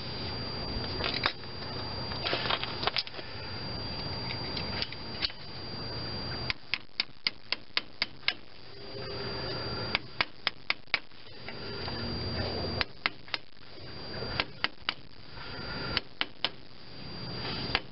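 Sharp metal clicks and taps of a small hand tool against a stainless steel cotter pin and the spindle nut on a truck's front wheel hub, as the pin's legs are bent over. They come in runs of quick clicks, about four a second, with pauses between.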